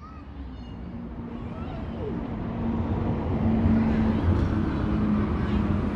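City bus engine approaching, its low rumble and steady hum growing steadily louder as it draws near.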